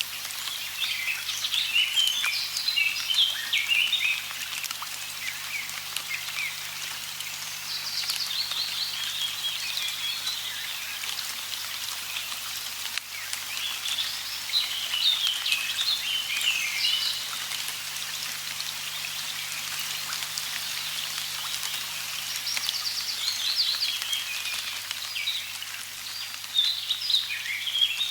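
Birds singing in repeated bursts of quick chirps that come and go every few seconds, over a steady hiss of light rain with scattered drop ticks.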